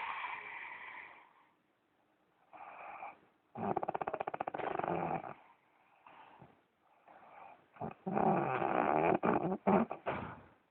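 A man snoring heavily in his sleep: a run of rattling, fluttering snores in breath-length bursts with short pauses between, the longest and loudest near the end.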